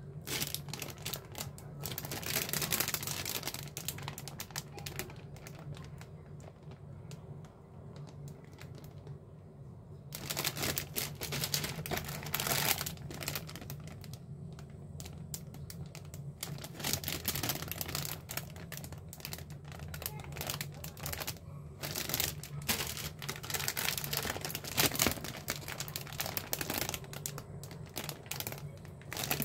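Clear plastic bags holding plastic model-kit parts runners crinkling and crackling as they are handled, with small clicks of the plastic parts. The rustling comes in a short spell at first, eases off, then carries on almost without pause from about a third of the way in.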